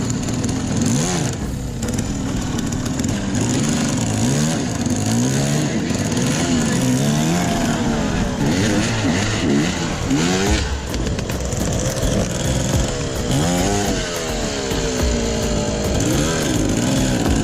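Enduro dirt bike engine revving up and down over and over as it is ridden, the pitch rising and falling every second or so.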